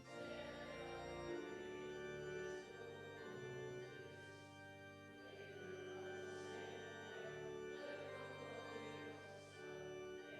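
Organ playing slow, sustained chords over a bass line that moves to a new note every second or so.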